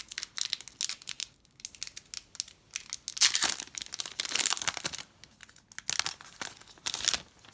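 Plastic-foil wrapper of a trading card pack being torn open and crinkled by hand, in irregular bursts of crackling, loudest a few seconds in.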